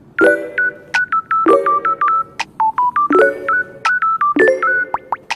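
Background music: an upbeat tune of short, beeping synth notes over a low chord that recurs every second and a half or so, with sharp clicks on the off-beats.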